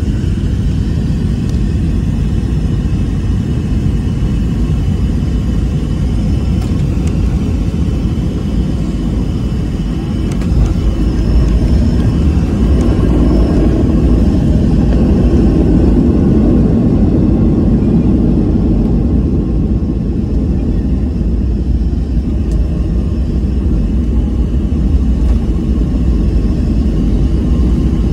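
Steady low rumble of a passenger plane heard from inside the cabin, engines and airflow. It grows louder about ten seconds in and stays strong.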